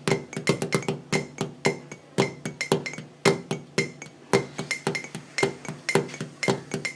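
Background music made of quick, bright struck or plucked notes, several a second in a steady rhythm.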